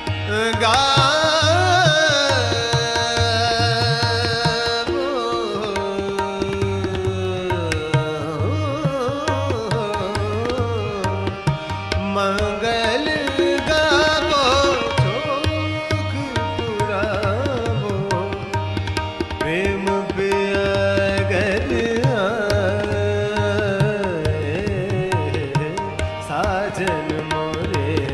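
Indian classical vocal music in Raag Jog: a singer's voice in long gliding, ornamented phrases over a steady drone, with tabla strokes keeping time.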